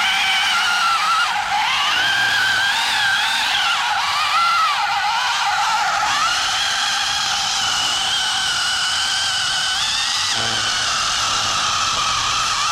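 Mini chainsaw cutting through a large log: a high motor whine with the chain rasping in the wood. Its pitch dips and recovers as the load changes, then holds steadier from about halfway.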